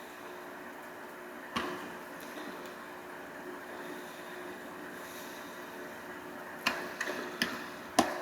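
A few sharp little clicks of LEGO minifigure pieces being handled, over a steady background hum: one click about a second and a half in, then a quick cluster of clicks near the end.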